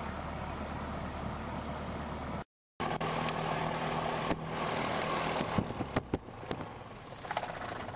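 Piper Archer II's 180-horsepower four-cylinder Lycoming engine running at low power on the ground, heard from inside the cabin. The sound breaks off briefly about two and a half seconds in, then the steady engine drone resumes with several sharp clicks and knocks in the second half.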